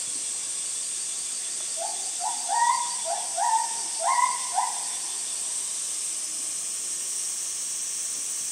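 Steady high-pitched drone of summer insects, most likely cicadas. Around two to four seconds in, a quick run of about eight short calls, each rising sharply and then holding its pitch, stands out above it.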